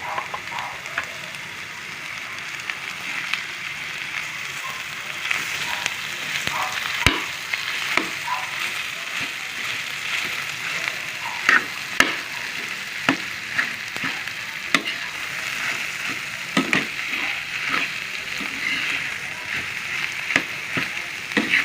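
Corned beef sizzling in butter with garlic and onion in a frying pan, a steady hiss broken by frequent sharp clicks and knocks of a utensil stirring it against the pan.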